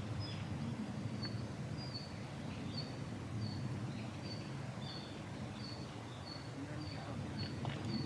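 Yellow-throated bunting giving short, thin, high call notes over and over, about every two-thirds of a second, over a steady low background rumble.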